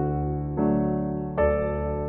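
Instrumental piano music playing slow sustained chords, a new chord struck about half a second in and another about a second and a half in.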